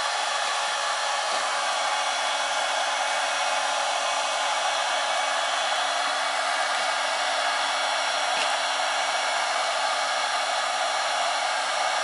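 Handheld heat gun running continuously, a steady rush of blown air with a faint steady hum underneath.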